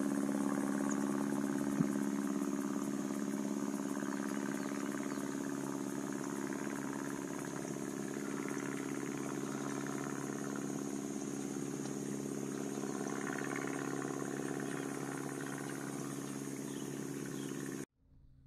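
An engine drones steadily, fading a little, then cuts off suddenly near the end.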